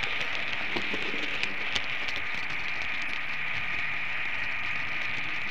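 Märklin model train running along the track, heard from a camera riding on it: a steady rattling hiss of wheels and pickup on the rails with a faint whine, and a few sharp clicks as it runs over the points about a second and a half in.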